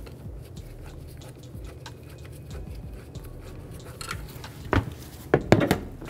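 Flat-blade screwdriver loosening a worm-drive hose clamp on a plastic air-intake duct: small clicks and scrapes, then a few louder knocks and rattles of the clamp and duct being worked near the end.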